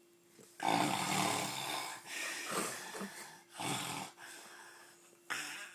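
Loud snoring in irregular breaths: a long snore starting about half a second in, two shorter ones after it, and a sharp brief snort near the end.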